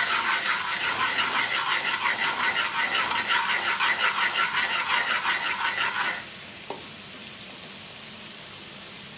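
Food sizzling and frying in a pan on the stove, with scraping from a utensil being stirred through it. About six seconds in the sound drops suddenly to a quieter, steady hiss.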